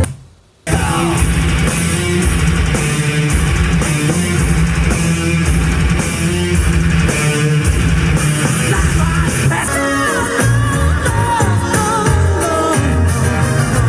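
Music from the Sansui G-7000 receiver's radio tuner playing through Technics SB-6000 loudspeakers: a song with a steady bass beat and guitar, with singing coming in later. It drops out for a moment right at the start, then comes back in.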